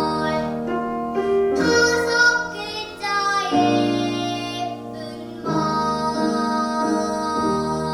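A young girl singing a Korean children's song over an instrumental accompaniment, with long held notes.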